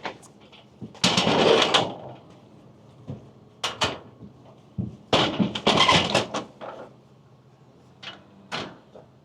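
A series of knocks and clattering bursts, the loudest about a second in and again around five to six seconds in, with shorter knocks near four and eight seconds.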